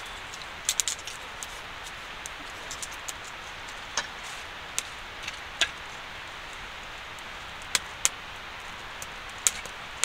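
Wood fire crackling in a small portable camp stove with its door open, with scattered sharp pops and a quick cluster of snaps about a second in over a steady hiss.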